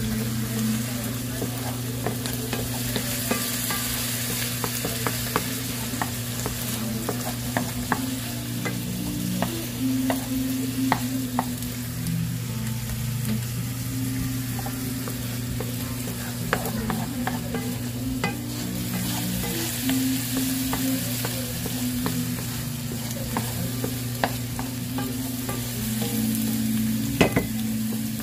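Sliced carrots sizzling in hot fat in a frying pan for caramelizing, stirred with a wooden spoon, with scattered sharp clicks and pops throughout. A steady low hum runs underneath.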